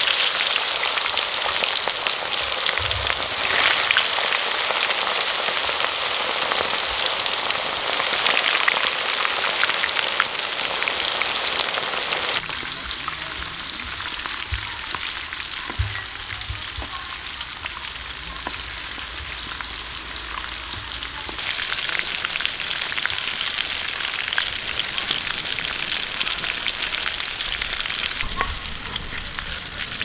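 Marinated quail pieces deep-frying in hot oil in a kadai, a loud, steady sizzle of bubbling oil. The sizzle drops abruptly about twelve seconds in and comes back louder about nine seconds later.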